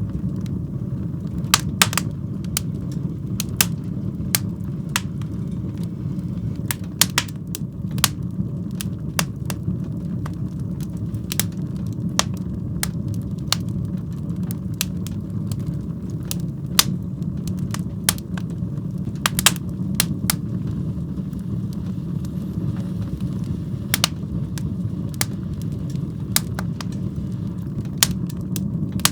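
Wood fire burning in a fireplace: a steady low rumble of flame with irregular sharp crackles and pops, roughly one every second or so.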